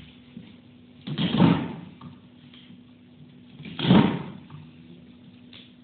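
Hand-lever chicken cutting machine chopping through chicken: two heavy chops about two and a half seconds apart, each as the long lever drives the blade down.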